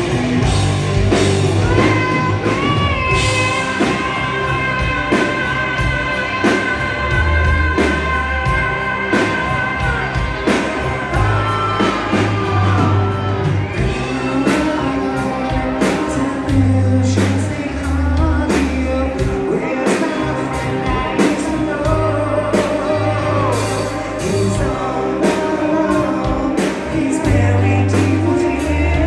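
Live hard rock band playing: electric guitars, drum kit and a male lead singer, heard from within the audience. Long held high notes ring out in the first third.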